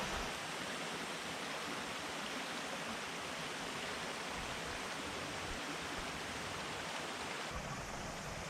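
Mountain stream water flowing, a steady rushing noise.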